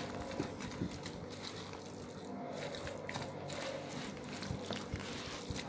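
A silicone spatula stirring a wet mix of grated onion, tomato and green pepper into minced meat in a plastic bowl, faint, with a few light taps against the bowl.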